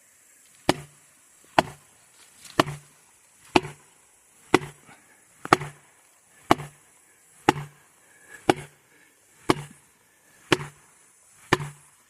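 A hammer striking felling wedges twelve times, about once a second in a steady rhythm, each blow a sharp knock with a short ring. The wedges are being driven into the back cut of a redwood to lift it toward the fall.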